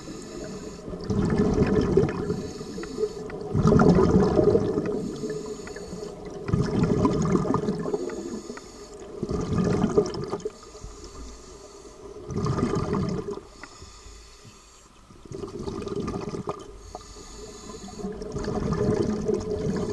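Scuba diver breathing through a regulator underwater: a rush of breath and bubbling noise about every three seconds.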